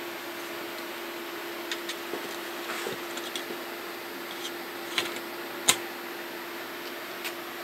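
A steady hum and hiss of background room noise, with a few scattered light clicks and taps and one sharper click just past the middle.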